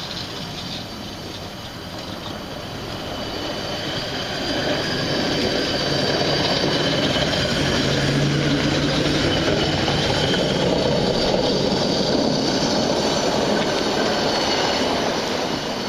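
CSX hi-rail pickup truck rolling along the track on its rail guide wheels, engine running and wheels rumbling on the rails. The sound grows as it passes close, stays loud through the middle with a thin high whine in the first half, then eases off near the end.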